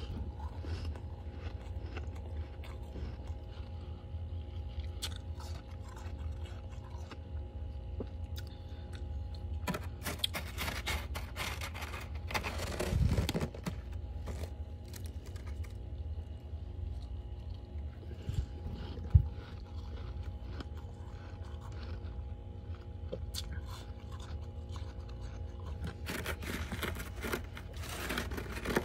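Thick, fluffy freezer frost crunching, in a dense bout about ten seconds in and another near the end, with scattered small crunches between. A steady low hum runs underneath.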